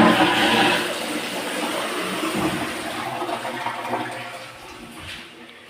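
Newly fitted toilet flushing: a rush of water, loudest at the start and slowly dying away over several seconds.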